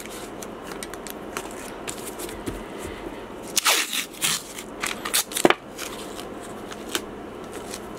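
Masking tape being pulled off its roll and torn in short rips, loudest in two clusters around the middle, over a steady background hiss.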